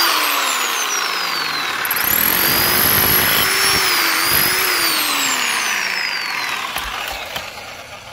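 Corded BAUER 1-1/8 in. SDS rotary hammer with a chisel bit hammering into a loose brick, breaking it apart. Its motor pitch sags at first, picks up again about two seconds in, then falls and dies away near the end.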